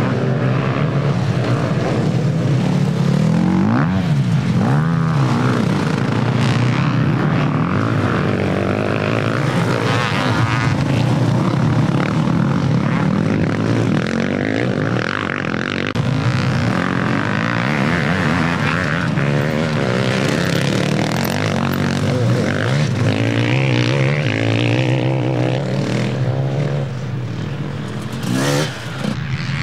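Engines of several off-road race vehicles running and revving together, one sweeping up and down in pitch as it passes about four seconds in.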